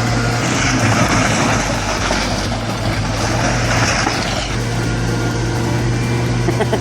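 Heavy vehicle engine running steadily with a deep hum; a noisier, louder stretch runs from about half a second to four seconds in.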